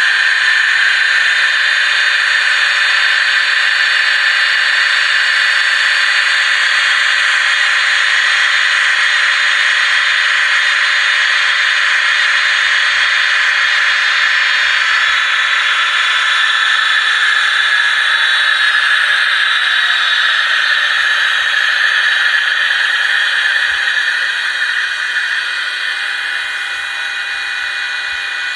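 Sound decoder in an HO-scale model of a ČD class 163 electric locomotive playing its thyristor control whine over a steady blower hiss, through the model's small speaker, with no bass. The whine holds several steady tones, shifts partway through, then glides downward and fades gradually near the end, as when the locomotive slows.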